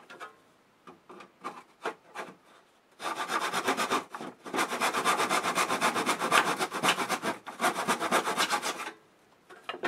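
Hand saw cutting a 45-degree angle through pine trim in a plastic miter box: a few light taps as the saw is set in the slot, then about six seconds of steady back-and-forth sawing strokes with a short pause about a second into the cut.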